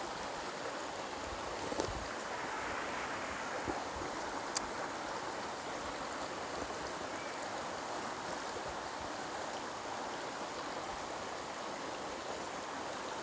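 Shallow rocky stream running steadily over stones, with a few small clicks in the first few seconds.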